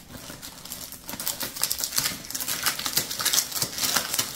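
Clear plastic packaging crinkling and crackling as hands pull at it and open it, a quick run of irregular crackles that gets louder from about a second and a half in.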